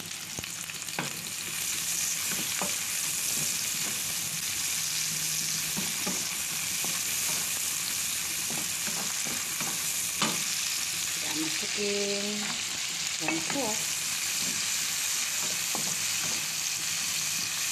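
Chopped garlic and sliced green chillies sizzling steadily in hot oil in a wok, stirred with a wooden spatula that clicks against the pan now and then.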